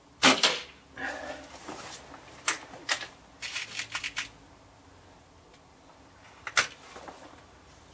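A tuned .22 spring-piston air rifle, still being run in, firing once with a sharp crack just after the start. Then a run of smaller clicks and knocks over the next few seconds as the rifle is handled, and one more sharp click near the end.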